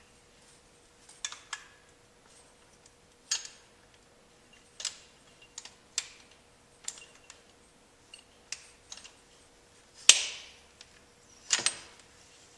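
Irregular metallic clicks and clanks from adjusting the frost-proof yard hydrant's operating rod and handle linkage, setting the rod's throw so the plunger seats on its rubber seal. The loudest clank comes about ten seconds in and rings briefly.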